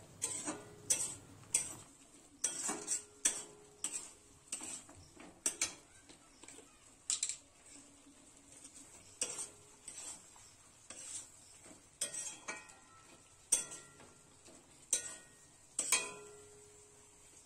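Metal spatula stirring thick star fruit pickle in a metal kadai: irregular scrapes and knocks against the pan, some followed by a brief metallic ring.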